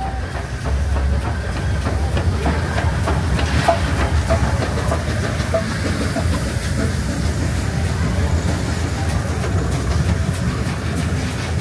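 Beyer-Garratt 6029, an AD60-class articulated steam locomotive, passing close with its train of carriages. A steady low rumble with rapid clicking of wheels on the rails, getting louder about a second in as the engine draws level.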